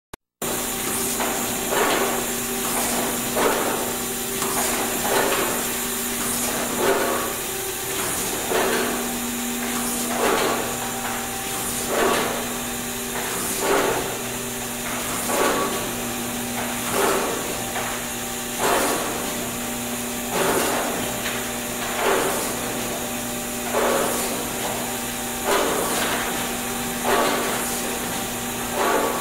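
Markem rotary golf-ball pad printing machine running, with a knock about every 1.7 s as it cycles, over a steady motor hum and hiss.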